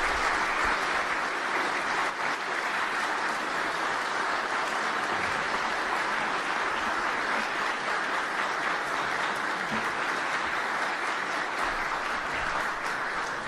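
A large audience applauding steadily, a little louder at first and tapering off near the end, at the close of a speech.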